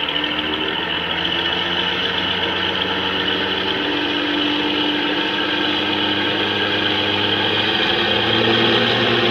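Sound-fitted OO gauge Dapol Class 52 'Western' model playing the Howes recording of its twin Maybach diesel engines through an EM2 speaker, the engine note stepping up about four seconds in and again near the end as the model pulls away with its train.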